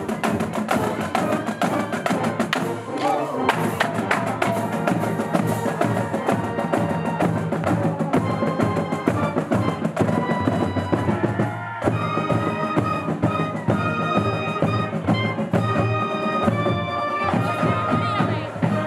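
Marching band playing while on the move: a drumline's snare and bass drum strokes under brass and woodwinds.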